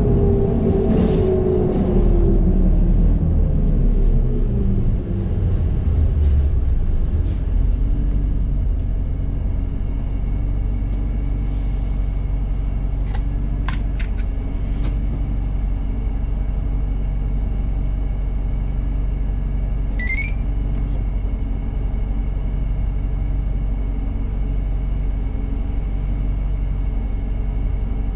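1998 New Flyer C40LF transit bus heard on board: the engine and drivetrain wind down in pitch as the bus slows to a stop, then the engine idles with a steady low rumble. A few light clicks come in the middle, and a short rising chirp about twenty seconds in.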